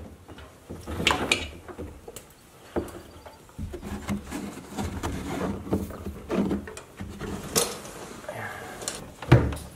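Irregular knocks, scrapes and rustles of hands feeding a power wire up through the front wheel well, against the wheel-well liner.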